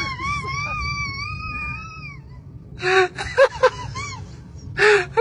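A high, wavering wail like a baby crying, held for about two seconds before fading out, then short bursts of voices.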